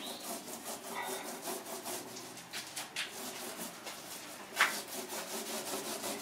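Resin being worked by hand into layered fabric on a kayak mould: rapid, repeated rubbing strokes, with one louder stroke about four and a half seconds in.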